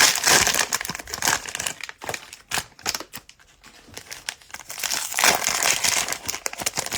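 Crinkly plastic cellophane wrapping of trading-card packs being torn open and crumpled by hand, in two bouts of crackling with a quieter pause in between.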